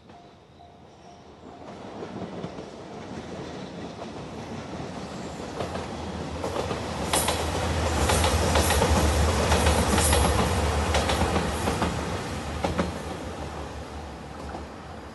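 A JR Shikoku 2700 series diesel multiple-unit express train approaching and passing a level crossing. Its low engine drone and the wheels clicking over rail joints grow to a peak about halfway through, then fade as it moves away. A level-crossing alarm bell rings with a fast repeating ding at the start.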